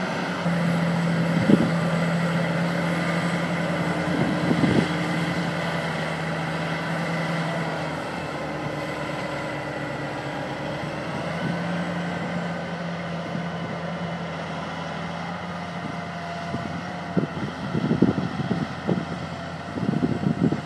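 Tracked tractor's diesel engine running steadily as it tows a pair of earthmoving scrapers, with wind buffeting the microphone in the last few seconds.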